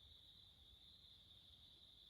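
Near silence: a faint, steady high-pitched hum with a soft low rumble beneath it, unchanging throughout.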